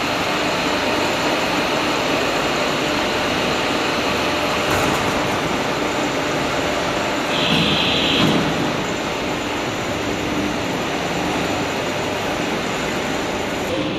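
AAC block production-line machinery running: a chain conveyor and the drives of a gantry block clamp make a steady, rumbling factory noise with a faint hum. A brief higher hiss or squeal comes about seven and a half seconds in.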